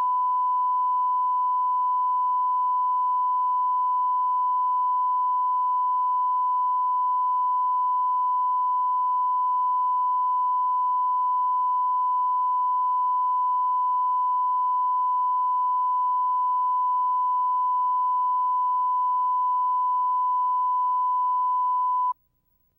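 Videotape line-up tone: a steady 1 kHz sine reference tone recorded with the colour bars at the head of the tape. It holds one unchanging pitch and level, then cuts off abruptly near the end.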